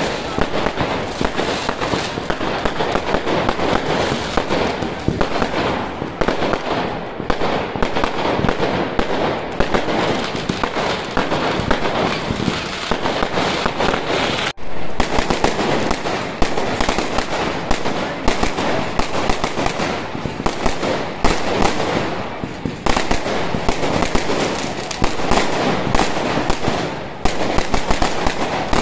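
A fireworks display going off in a continuous barrage: dense, rapid crackling and bangs of bursting shells and firecrackers. The sound cuts out for an instant about halfway through.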